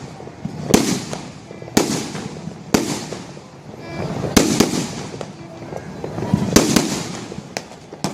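Fireworks going off: sharp bangs about once a second, each followed by a crackling rumble.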